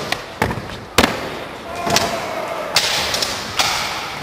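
Skateboard wheels rolling on concrete, with about half a dozen sharp clacks and thuds of the board hitting the floor, ringing in a large indoor skatepark hall.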